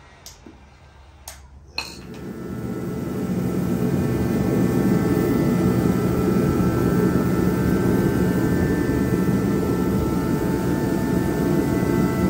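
A few sharp clicks, then a turbo shop heater starting up, its fan and burner rising over about two seconds to a loud, steady rush with a faint whine on top.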